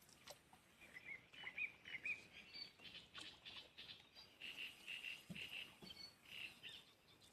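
A small bird chirping faintly: a run of short, high, arched notes, coming more thickly after about three seconds.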